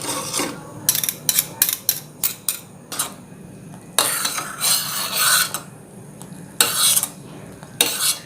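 A utensil stirring chocolate syrup in a pan on the stove, clinking and scraping against the pan: a quick run of clicks in the first few seconds, then longer scraping strokes. The syrup is being stirred constantly as it heats toward the boil, so it won't catch and burn on the bottom.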